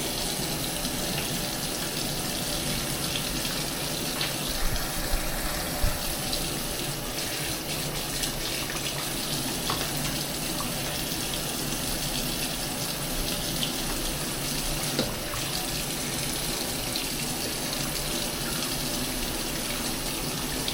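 Bathroom sink tap running steadily, water splashing into the basin, with a few light knocks about five seconds in.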